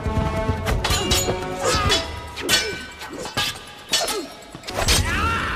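Movie fight-scene soundtrack: a rapid series of weapon blows, whacks, clangs and crashes from a sword-and-staff fight, over an orchestral action score.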